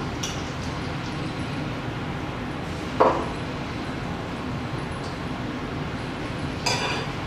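Raw turkey breast pieces sizzling steadily in melted butter in an electric skillet. A sharp clink about three seconds in and another, smaller clink near the end.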